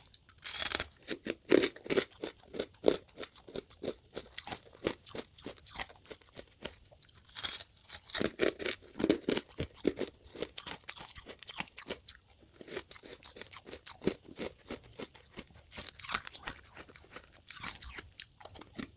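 Close-up crunching and chewing of freezer frost: a run of crisp bites followed by steady, irregular chewing, with a fresh bite every several seconds.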